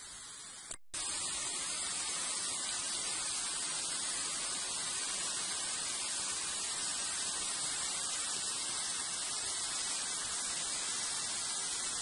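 Steady rushing of a waterfall, with falling water and spray. The sound cuts out for an instant under a second in and comes back louder.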